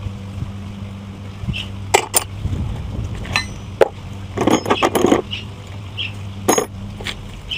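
Metal tools and engine parts clinking during a small engine teardown: a few sharp taps and clinks, with a brief cluster of clattering knocks near the middle.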